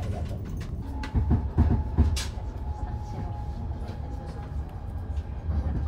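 Cabin noise of a Hayabusa shinkansen running on the Tohoku Shinkansen: a steady low rumble, with a thin steady whine from about a second in and a few knocks between one and two seconds in.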